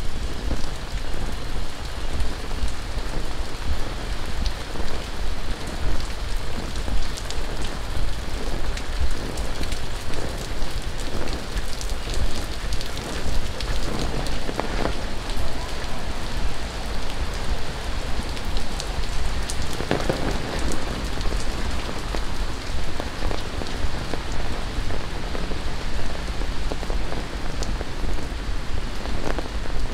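Steady rain falling and splattering on hard surfaces, a dense patter of drops with a few louder bursts of splashing about halfway through.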